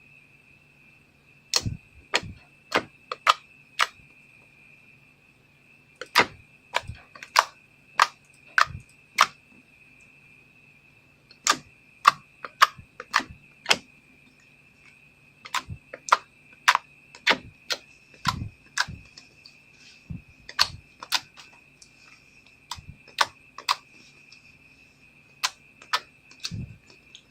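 Clear slime being squeezed and worked by hand, giving sharp clicking pops in quick runs of several at a time, over a faint steady hum.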